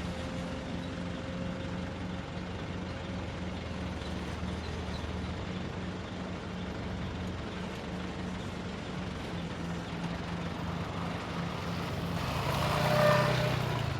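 A construction machine's engine running steadily. Near the end a louder, higher-pitched sound swells and fades.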